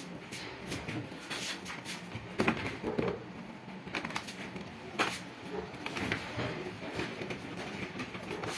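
Irregular clicks and knocks of hands, a screwdriver and a metal stand bracket handled against the plastic back cover of an HP all-in-one desktop computer, with two sharper knocks about two and a half and five seconds in.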